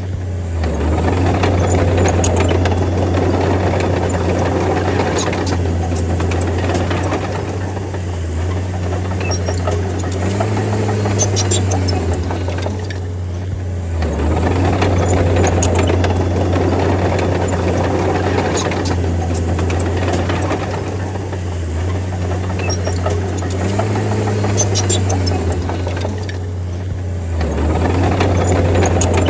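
D30 crawler bulldozer's diesel engine running under load, its sound rising and easing off every several seconds as it pushes, with rattling clicks at times.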